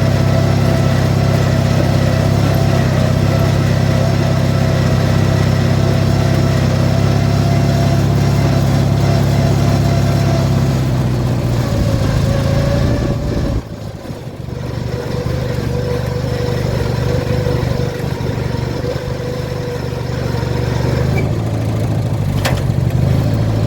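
The 18 hp Briggs & Stratton twin-cylinder engine of a modified Craftsman riding mower runs as the machine drives again on its newly replaced transmission. The engine note holds steady for about the first ten seconds, falls off sharply around the middle, then picks back up and rises again near the end.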